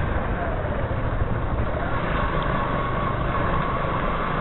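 Yamaha Crosser 150 S motorcycle's single-cylinder engine running steadily at low road speed, heard from the rider's position.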